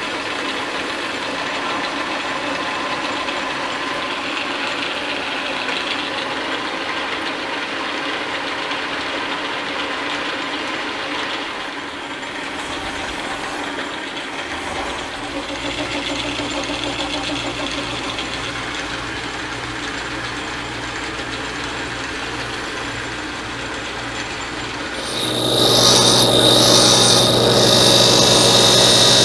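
Small metal lathe running steadily, turning a steel axle with a cutoff-and-grooving insert in the tool post. About 25 seconds in it gives way to a bench grinder grinding a lathe tool bit, louder, with a high hiss over a low hum.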